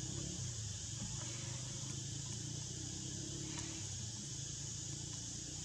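A steady, high-pitched insect drone, even and unbroken, over a low steady rumble of forest ambience.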